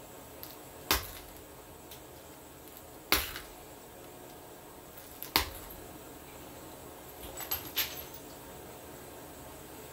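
Knife blade being stropped on a loose piece of leather held over the knee: three sharp slapping snaps of blade and leather about two seconds apart, then a few softer clicks near the end.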